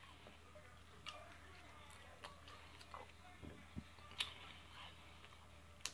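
Faint chewing of food, heard as scattered soft mouth clicks and smacks, the loudest about four seconds in.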